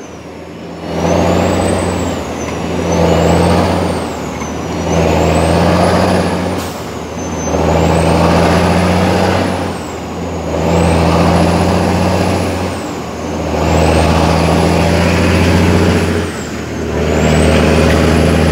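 Heavy truck diesel engine (International 9900i) heard from inside the cab, pulling through the gears. It runs loudly under load for about two seconds at a time and drops briefly at each gear change, about six times. A thin high whistle wavers up and down over it.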